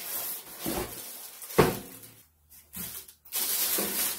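Plastic bag rustling and crinkling as it is handled and pulled off a boxed air filter unit, with a single dull thud about one and a half seconds in. The sound dips almost to nothing briefly past the middle, then steady crinkling resumes.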